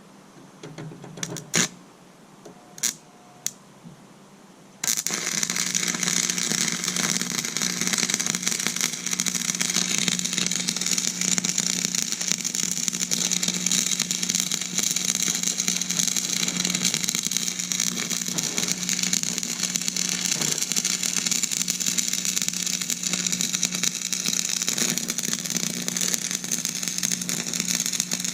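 Buzz-box stick welder arc crackling steadily as a nut is welded onto a bolt, starting about five seconds in after a few light clicks, with a steady low hum under the crackle.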